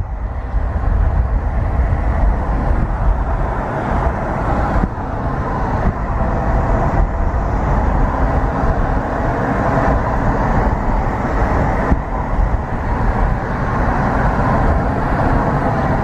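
Steady road and engine noise heard from inside a moving car.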